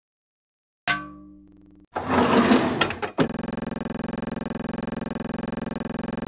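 A single clink of a teaspoon on a porcelain teacup, ringing away for about a second, then a second of loud rustling noise. A steady electronic-sounding buzz with many overtones follows, holds for about three seconds and cuts off suddenly.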